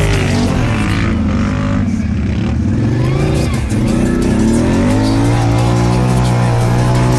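Can-Am ATV engine revving up and down repeatedly under load as the quad churns through a muddy bog track, with the revs held steadier near the end. Mud and water spatter from the tyres.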